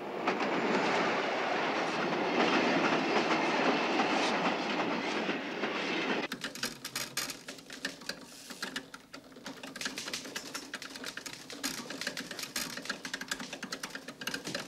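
Electric train running past, a dense rumbling clatter that cuts off abruptly about six seconds in. Then rapid clicking of keys typed on a typewriter-like machine.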